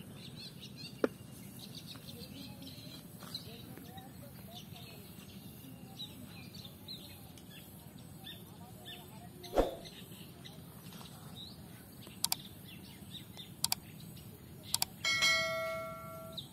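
Small birds chirping over a steady outdoor hiss, with a single dull thump about ten seconds in. Near the end come a few sharp clicks and then a short ringing electronic chime, the sound effect of an on-screen subscribe-and-bell button animation.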